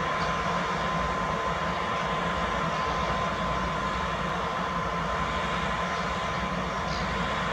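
PKP Cargo ET22 electric freight locomotive passing slowly: a steady mechanical hum and rumble with a constant whine held on one pitch.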